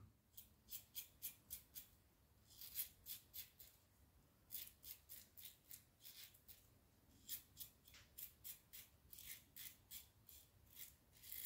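Laugar Skogsrå double-edge safety razor scraping through beard stubble in short, faint strokes, several a second, in bunches with short pauses between them.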